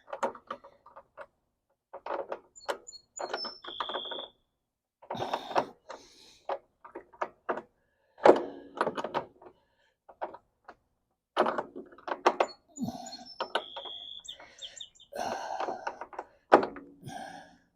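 Irregular metallic clicks, clinks and knocks of a 1-inch socket turning the thin mounting nut of a riding mower's ignition switch, tightening it down.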